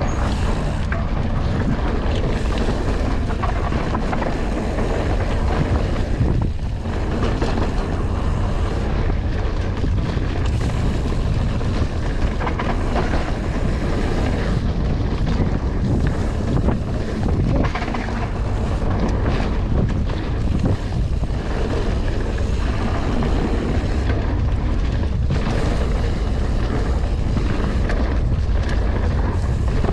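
Wind buffeting the microphone and mountain-bike tyres rumbling over a dirt trail at speed, with frequent knocks and rattles as the bike hits bumps and rocks.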